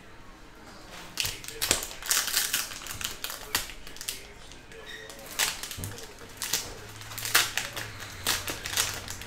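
A Kakawow Disney 100 Phantom card pack's foil wrapper crinkling and tearing open in the hands, as a series of sharp, crackly rustles starting about a second in.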